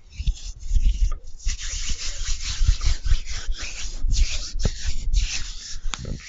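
Close-miked mouth sounds of someone chewing marshmallows: soft, sticky, irregular chewing noises with short pauses between them.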